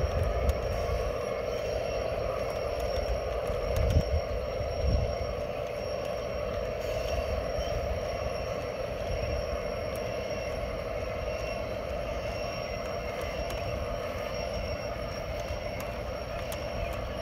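G scale model freight train of hopper cars rolling past on metal track: a steady whirring rumble of many wheels running on the rails. Two low thumps stand out about four and five seconds in.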